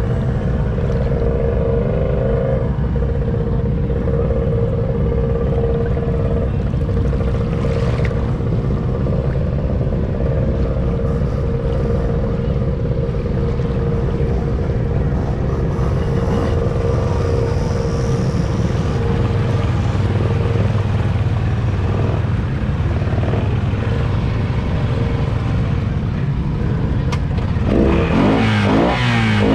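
Honda Rubicon ATV engine running at a steady, low throttle as the quad wades through deep water. Near the end the engine revs up.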